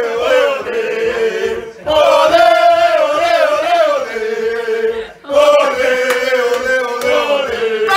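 A group of people chanting loudly together, in long sung phrases that break briefly about two seconds and five seconds in.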